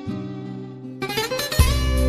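Background music: a held chord fades away, then about a second in a fuller passage of plucked strings comes in, with a low beat landing near the end.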